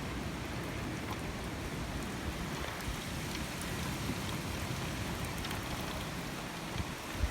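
Squall-line downpour of rain mixed with sleet and hail falling steadily, with scattered faint ticks of drops and pellets. A low rumble of strong wind runs underneath.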